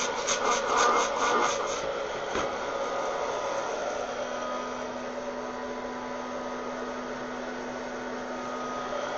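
Wear-Ever Popcorn Pumper hot-air popper running steadily, its fan and heater blowing air up through coffee beans roasting in a tin can, in the stage before first crack. A fast rattle of about five strokes a second fills the first two seconds as the can is handled, and a low steady hum joins about four seconds in.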